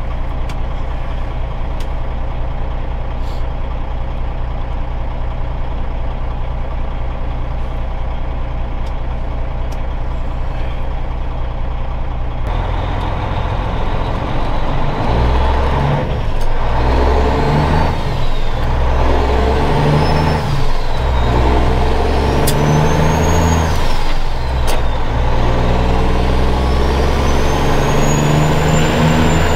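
Straight-piped Caterpillar 3406 inline-six diesel in a Kenworth W900 idling steadily, then pulling away about twelve seconds in and running up through the gears of a manual gearbox. The engine note climbs and breaks off briefly at each shift, with a high whistle rising and falling with each gear. Heard from inside the cab.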